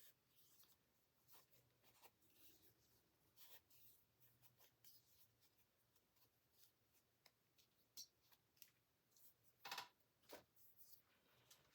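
Near silence with faint scattered rustles and small taps of paper pages and a fabric strip being handled, a slightly louder crackle near the end.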